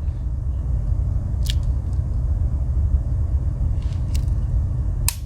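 Three sharp clicks of a Wenger Swiss Army knife's tools snapping against their backsprings as they are worked, the last and loudest near the end, over a steady low background rumble.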